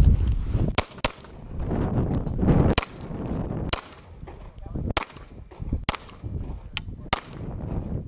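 Gunshots fired one after another in a practical shooting course of fire: about eight sharp reports at uneven spacing, including two quick pairs, with a low rumbling noise between them.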